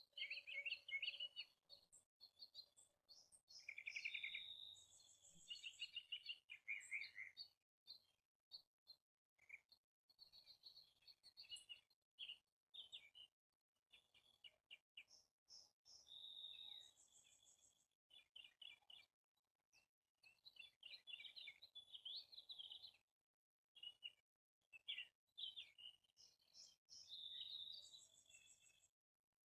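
Songbirds chirping and singing, with overlapping short whistled calls and rapid trills that come in bursts with brief pauses, stopping near the end.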